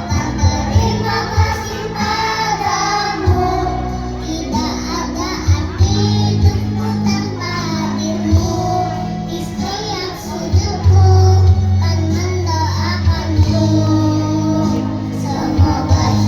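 Young children's choir singing over musical accompaniment with a bass line and a steady beat.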